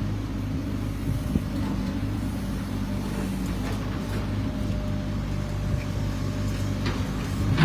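An engine running steadily at a constant low pitch, with a few light knocks over it.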